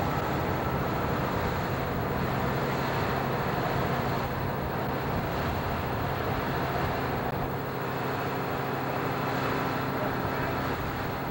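Steady engine noise from airport ground-service vehicles running on the ramp: an even low hum under a constant rushing noise, unchanging throughout.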